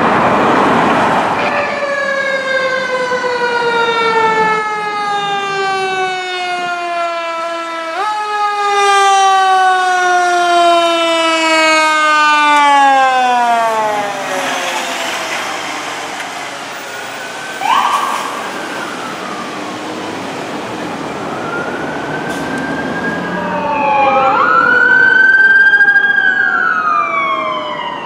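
Fire apparatus sirens on a code-3 response. A siren falls slowly in pitch in two long descents, jumping back up once about eight seconds in. Later a second siren wails up and down, loudest near the end.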